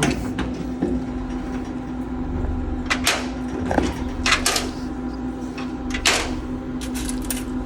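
Scattered sharp metal clicks and knocks, about eight in a few seconds, as a screwdriver works at a vending machine's lock or panel to get it open, over a steady hum.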